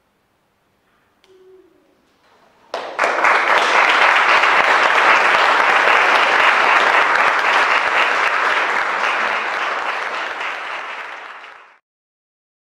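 Audience applauding, breaking out suddenly about three seconds in after a short quiet, then steady and fading away near the end.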